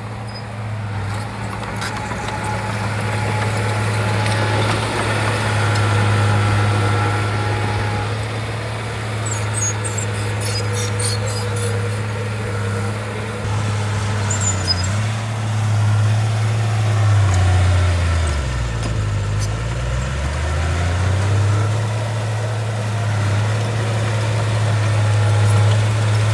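A Shantui bulldozer's diesel engine runs steadily. About two thirds of the way in its pitch sags, then climbs back. A run of high-pitched squeaks comes about a third of the way in.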